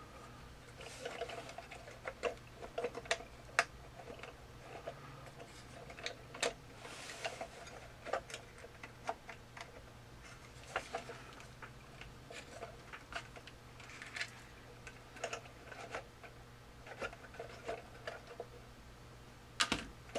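Irregular light clicks and taps of small plastic parts and wires being handled in a Lemax Eerie Go Round's mechanism, over a steady low hum.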